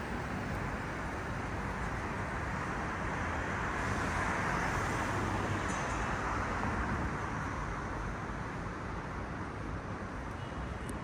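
City street traffic: a steady wash of passing cars, swelling a little in the middle.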